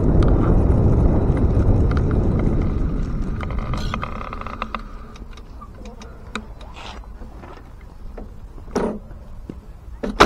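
Bicycle rolling noise picked up by an action camera's built-in microphone: a dense low rumble carried through the rigid steel fork and frame, fading over the first few seconds as the bike slows. It gives way to scattered light clicks and knocks, with a sharp knock at the very end.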